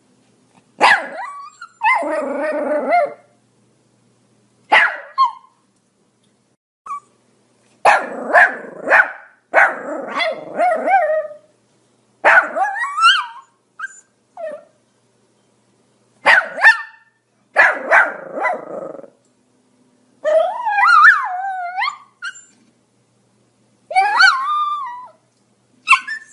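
Pomeranian barking in irregular bursts, short sharp barks mixed with longer, drawn-out ones, and pauses of a second or two between the volleys. Around two thirds of the way through, one longer bark wavers up and down in pitch.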